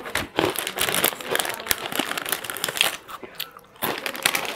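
Plastic snack packet crinkling as it is handled, a dense crackle of sharp clicks that eases off briefly about three seconds in and then picks up again.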